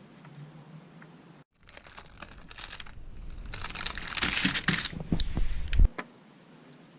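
Crinkling and crumpling of crinkly material being handled. It builds up after a short break, grows loudest past the middle, then stops abruptly about a second before the end.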